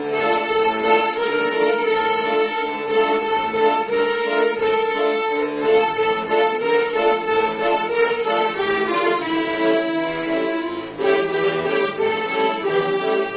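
Accordions and a violin playing a hymn tune together, instrumental with no singing.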